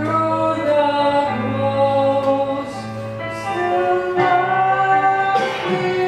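Live musical-theatre singing: voices hold long notes in harmony over a band accompaniment with a steady low bass note, the chord changing every second or so.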